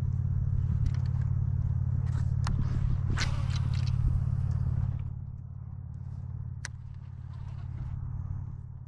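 A motor's steady low hum that drops in level about five seconds in and keeps running more quietly, with a few sharp clicks over it.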